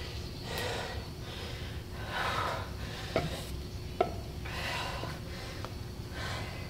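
A person breathing hard in rhythm with exercise reps, a noisy breath about every second and a half. Two sharp clicks come about a second apart in the middle.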